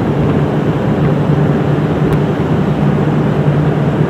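Loud, steady drone of a ship's running machinery inside the funnel casing, a constant low hum. A single light click about two seconds in.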